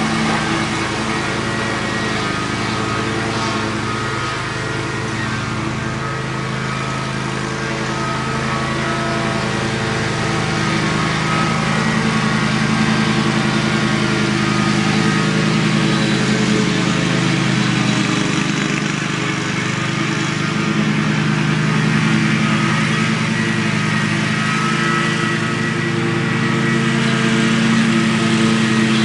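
Stand-on riding lawn mower's engine running steadily while cutting thick, overgrown grass, growing louder near the end as it comes closer.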